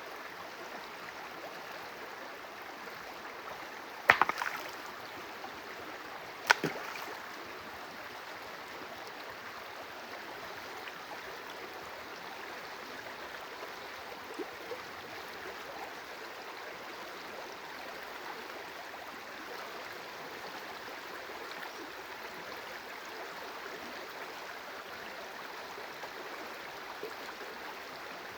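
Stream water running steadily, with two sudden sharp sounds about four and six and a half seconds in.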